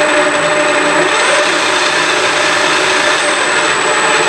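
Johansson drill press running steadily on its motor driven by the variable frequency drive, a loud even machine noise with a thin high whine on top.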